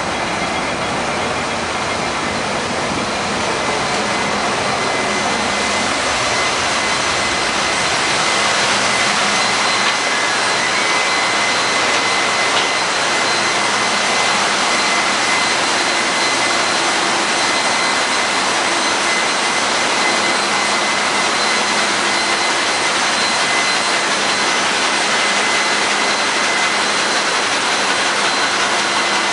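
Ship's engine-room machinery running, with the MAN B&W 6S50MC-C two-stroke main engine and its turbocharger: a steady loud roar with a constant high whine, growing a little louder about eight seconds in.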